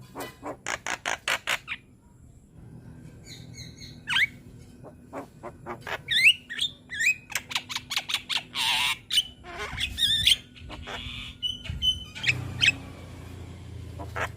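Young Javan myna (jalak kebo) singing actively. It opens with a quick run of about eight clipped notes, pauses briefly, then gives a varied string of rising whistles, clicks and harsh squawks.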